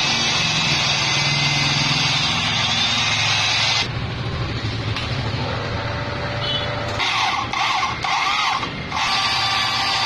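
Drilling machine's cutter biting into a small metal part held in a vise: a high, wavering squeal of the cut over the running motor. The squeal drops away for a few seconds near the middle and comes back, lower at first, near the end.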